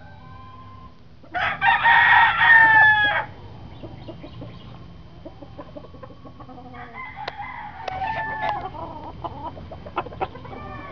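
A rooster crows loudly about a second and a half in, the crow lasting nearly two seconds; a second, fainter rooster crow follows about seven seconds in. A few short sharp clicks come near the end.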